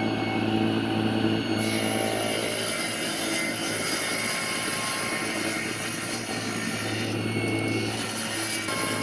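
A woodworking power machine running steadily with a constant low hum and a bright, hissing cutting noise that grows stronger about a second and a half in.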